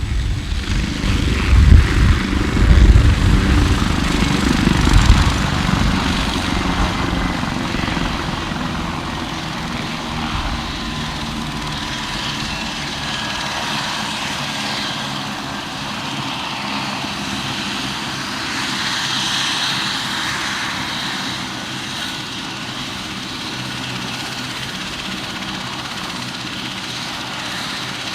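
Helicopter running with its turbines and rotor: a loud, pulsing rotor throb for the first five seconds or so, then a steadier, quieter run with a thin turbine whine.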